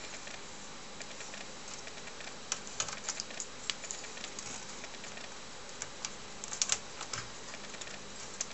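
Light clicks and taps of a small hook-type IC test clip being fitted onto a chip's pin on a computer motherboard, in two short clusters, over a steady low hiss.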